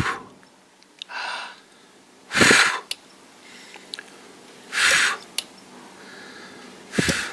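Four short breathy puffs of air, each under half a second and roughly two seconds apart, with a few faint clicks between them.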